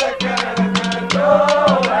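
Haryanvi folk stage music: quick hand-drum strokes under a wavering melody line, over a steady low held tone.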